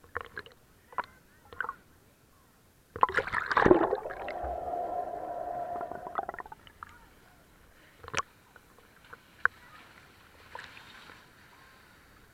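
Pool water splashing and gurgling against a waterproof camera as it moves in and out of the water, with small knocks and drips. About three seconds in comes a loud splash, followed by a few seconds of steady muffled bubbling underwater.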